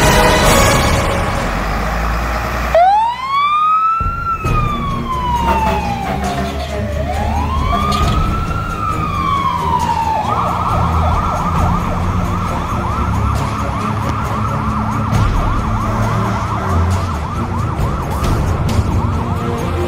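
Fire engine's electronic siren: a wail that rises and falls slowly twice, then switches about ten seconds in to a fast yelp that runs on without a break.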